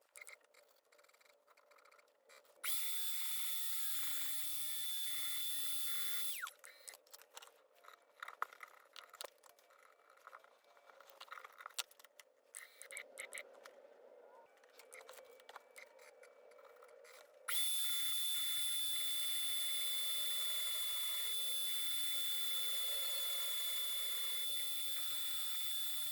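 CNC mill's spindle running at high speed with a steady high whine while milling a plastic microfluidic chip, starting about three seconds in and stopping around six seconds, then starting again near the end. In between, scattered light clicks and scraping.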